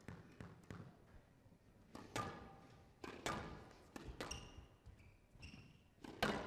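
Squash rally on a glass court: several sharp knocks of the ball off racket and walls, the loudest near the end, with two short squeaks of court shoes on the floor in between.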